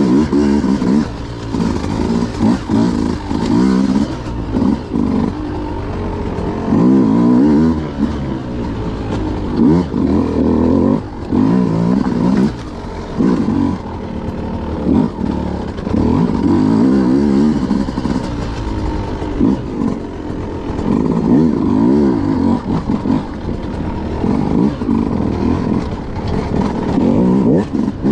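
Beta RR 200 two-stroke enduro motorcycle engine being ridden off-road, revving up and down over and over as the throttle is opened and closed every second or two.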